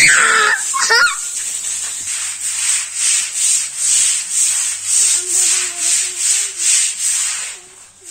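A calf feeding from a bowl: rhythmic rasping of licking and scraping, about two or three strokes a second.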